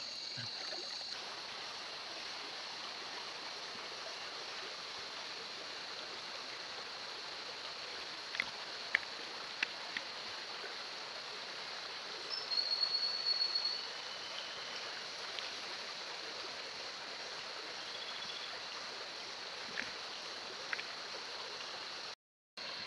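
Steady rushing of a shallow river flowing over rocks. A high steady insect trill stops about a second in; a few sharp clicks and some short high whistles sound over the water later, and the sound drops out briefly near the end.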